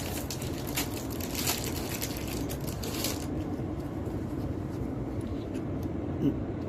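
Trading cards and booster-pack foil being handled: a quick run of rustling and crinkling for about three seconds, then a few scattered light clicks, over a steady low hum.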